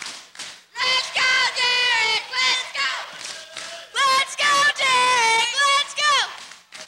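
High-pitched young voices in the wrestling crowd chanting in a drawn-out sing-song rhythm, each phrase held and then falling off at the end, repeated in two runs with a short lull about halfway through.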